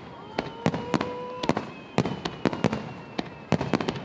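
Fireworks going off in a quick, irregular string of sharp bangs, about a dozen of them, as aerial shells burst. A steady whistling tone sounds through the first second and a half and then cuts off.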